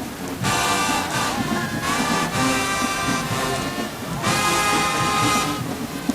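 High school marching band playing: brass horns hold loud phrases over a drumline, with short breaks between phrases at the start, about two seconds in and about four seconds in.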